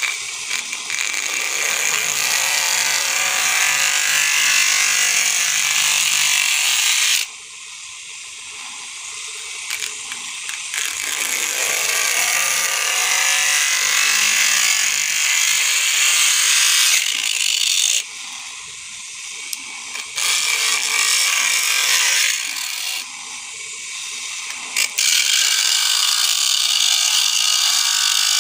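Homemade cutter, a water-pump motor spinning a small cutting disc, grinding through a thin piece of wood with a steady high grinding noise. The cutting breaks off three times for a few seconds each, leaving only the quieter run of the motor.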